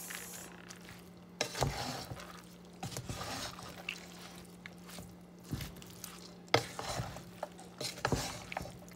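A spoon stirring rice and meat in a cooking pot, scraping and knocking against the pot at irregular moments, about six times, over a steady low hum.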